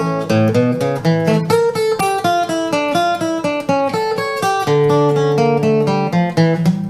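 Emerald X20 carbon-fibre acoustic guitar being played: a continuous passage of plucked notes and chords, several notes a second.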